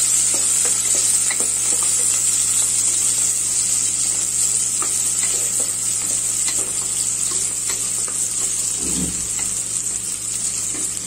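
Sliced shallots sizzling in hot oil in an aluminium pressure cooker, with a steady hiss, while a wooden spatula stirs them and scrapes and clicks against the pot.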